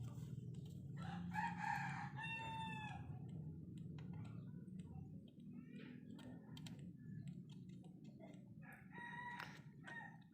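A rooster crows twice: once about a second in, with a call that falls in pitch at its end, and again near the end. A low, steady rumble runs underneath.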